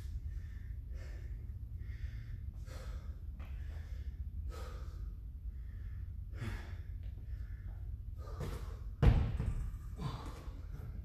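Hard, gasping breaths of a winded athlete, one every half second to a second, over a steady low hum. About nine seconds in comes a loud thump as he kicks up into a handstand against the wall.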